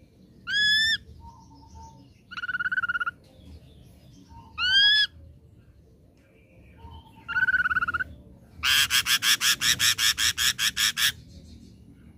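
Ashy drongo singing: clear whistled notes that rise in pitch alternate with short buzzy trills, several led in by a faint low whistle. Near the end comes a rapid run of about fourteen harsh notes, some six a second, which is the loudest part.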